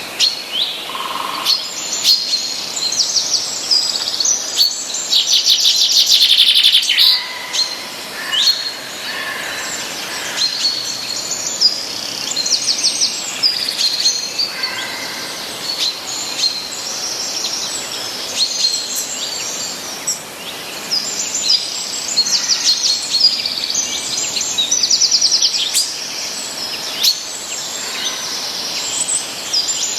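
Several small songbirds chirping and trilling, with fast rattling trills and short calls overlapping across the whole stretch, over a steady background hiss.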